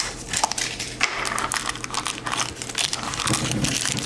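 Plastic shrink-wrap crinkling and crackling as it is torn and peeled off a small plastic toy capsule, in a dense run of quick, irregular crackles.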